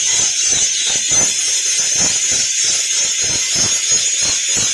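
Blacksmith's forge running with a steady high hiss, under a fast, even pulsing knock about four times a second.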